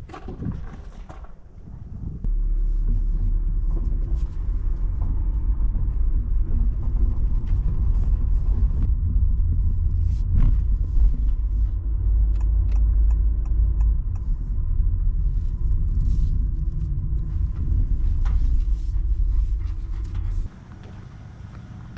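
Loud, steady low rumble that starts abruptly about two seconds in and cuts off suddenly near the end.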